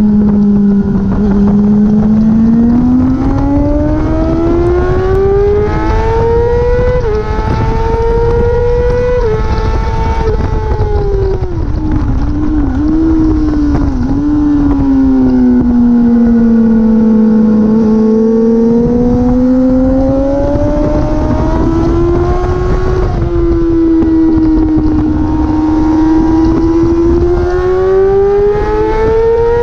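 Sport motorcycle engine heard from on board at full track pace: the note climbs through the revs with a sudden drop at each upshift, falls away with a few quick blips as it downshifts for a bend near the middle, then climbs again with another shift about three quarters through. Wind rush on the microphone runs underneath.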